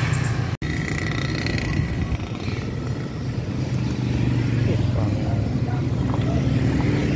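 Motorcycle engine running steadily at low speed, with street traffic around it. The sound cuts out for an instant about half a second in.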